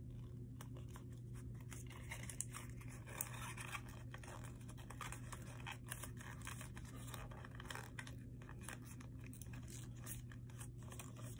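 Paper being folded and creased by hand: faint, irregular crinkling and scraping with small scattered ticks, over a steady low hum.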